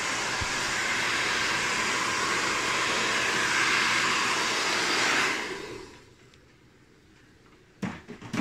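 Handheld hair dryer blowing steadily, switched off about five seconds in and winding down. Two short knocks near the end.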